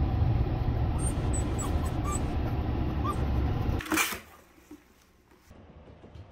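Steady low rumble of a moving car heard inside the cabin, with a few brief, faint high squeaks from a beagle puppy in a cardboard carrier. About four seconds in it cuts to a sharp knock, then a quiet room with a few light ticks near the end.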